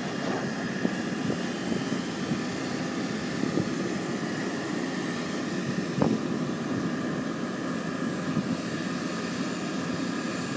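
Pile-driving rig machinery running steadily with a steady whine, and a sharp clank now and then, the clearest about six seconds in.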